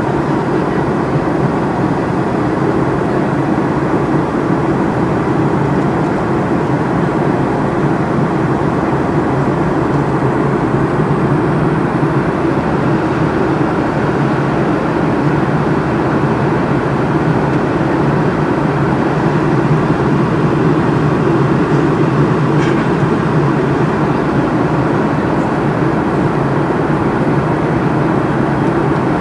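Cabin noise of a jet airliner in flight: a steady, even low drone of engines and airflow that does not change. A faint single click about three-quarters of the way through.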